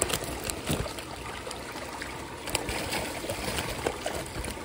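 Steady trickle of running water at a fish pond, with a few faint knocks.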